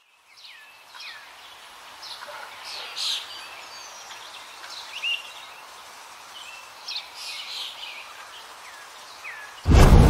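Birds calling, scattered short chirps and falling whistles, over a steady outdoor hiss. Near the end a sudden loud boom cuts in.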